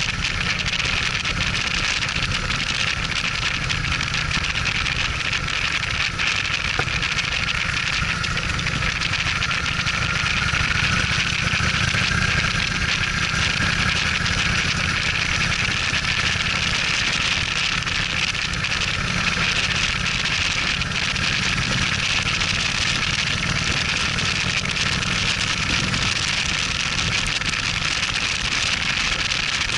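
Motorcycle riding at a steady cruising speed: low engine sound under a constant hiss of wind and road noise on the camera's microphone.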